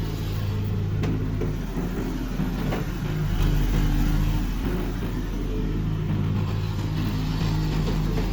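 Hitachi UH025-3 excavator's diesel engine running steadily, its note dipping and rising a little, with a few faint knocks.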